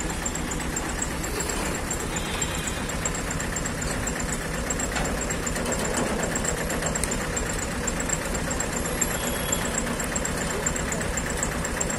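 A motor vehicle engine idling steadily, a continuous low rumble.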